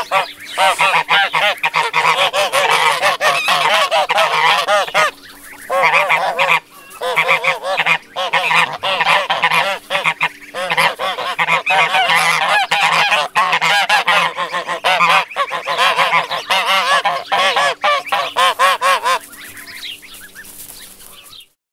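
A flock of geese honking almost without pause, many overlapping calls at once. The honking stops about nineteen seconds in, leaving fainter sound that cuts off just before the end.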